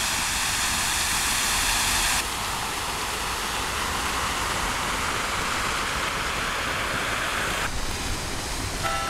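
The Perseus and Andromeda fountain running with its ninety or so jets: a steady rush of falling, splashing water. Its hiss turns duller about two seconds in and again near the end.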